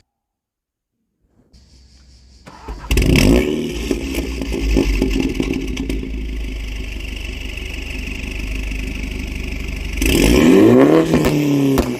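MINI John Cooper Works engine breathing through an aftermarket Remus exhaust, starting up about three seconds in and settling into a steady idle, then revved once near the end, the pitch climbing and falling back.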